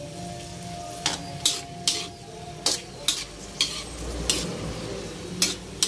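Metal ladle scraping and clanking against a steel wok as long beans are stirred in a sizzling adobo sauce. There are about nine sharp strokes at uneven intervals over a steady low sizzle.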